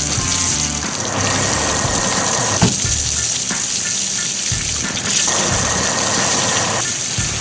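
Cartoon sound effect of water spraying or gushing, a steady hiss that eases off and comes back, over background music with a stepping bass line.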